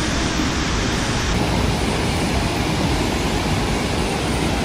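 Burney Falls' water pouring steadily into its plunge pool: an even, unbroken rush of falling water.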